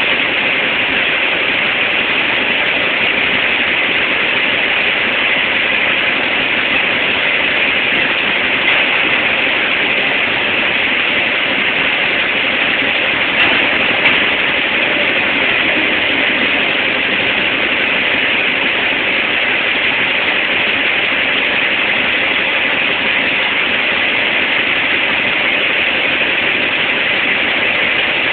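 Steady industrial machinery noise: a dense, even hiss and roar with a faint steady hum, and a couple of brief louder knocks about halfway through.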